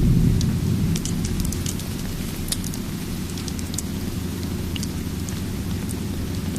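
Steady rain ambience with a low rumble of thunder dying away over the first second or two, and scattered small sharp crackles throughout.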